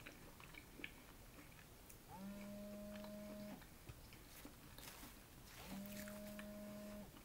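A mobile phone vibrating twice, each buzz a steady hum about a second and a half long that rises briefly at its start. Soft chewing clicks come in between the buzzes.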